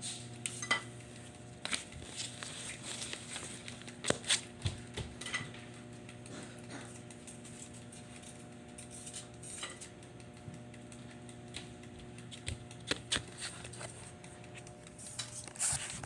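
Scattered light clicks, clinks and knocks of objects being handled, over a steady low hum; near the end, rubbing and knocking as the phone is picked up and handled.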